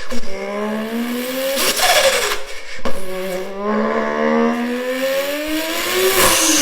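A person imitating a supercar engine with their voice: a buzzing engine note climbs in pitch as if accelerating through the gears. It breaks off and drops twice, about two and three seconds in, like gear changes, then climbs again in one long pull.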